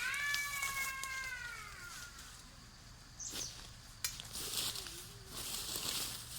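Cat meowing: one long, drawn-out call that falls slowly in pitch over about two seconds. Bursts of rustling hiss follow about a second later.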